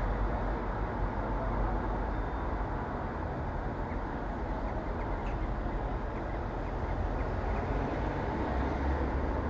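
Street ambience: a steady wash of traffic noise with a low rumble, and a few faint light ticks a few seconds in.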